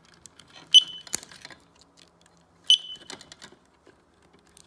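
Smoke detector giving two short, high beeps about two seconds apart, each starting with a sharp click, as its battery connector is snapped back on: the alarm chirping as it receives power. Light plastic clicks and handling between.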